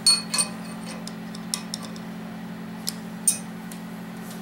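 Light metallic clicks and clinks, about six scattered sharp ticks, as steel valves are oiled with a pump oil can and slid into the guides of a 5.7 Vortec cast-iron cylinder head, over a steady low hum.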